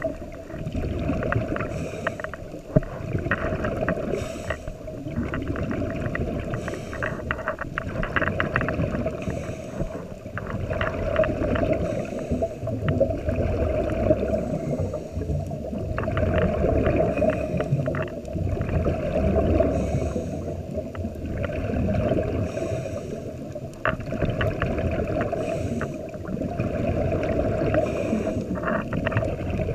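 Scuba diver breathing through a regulator underwater: muffled rushing and gurgling of exhaled bubbles with crackling, swelling and fading every few seconds with each breath.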